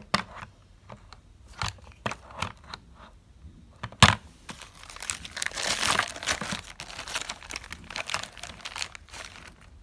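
Clear plastic packaging crinkling as boxed BMX crank arms are handled and lifted out, with scattered light clicks and one sharp knock about four seconds in. The crinkling is thickest a second or so after the knock, then thins out.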